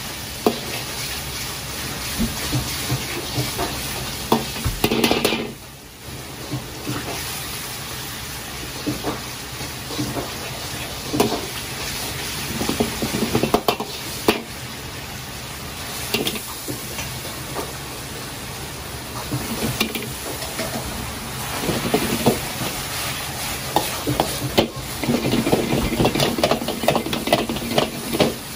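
Metal ladle scraping and clinking in a carbon-steel wok while sauce sizzles over a gas burner. Near the end, the strokes come fast and dense as vegetables and pork are stir-fried in the wok with the sauce.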